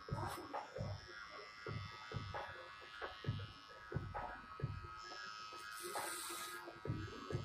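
Electric hair clippers buzzing steadily as they cut hair at the back of the neck, with a string of short low knocks about every half second.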